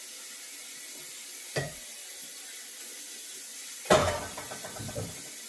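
Pots and dishes knocking in a kitchen sink during hand washing: a light knock about a second and a half in, then a louder clatter about four seconds in that rings briefly.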